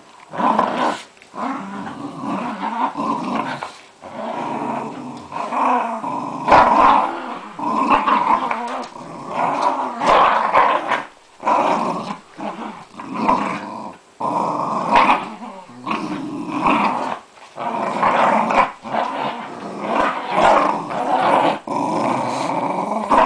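Jack Russell terriers play-growling as they tug at a plush toy, a rough growl running in bouts of a second or two with short breaks between.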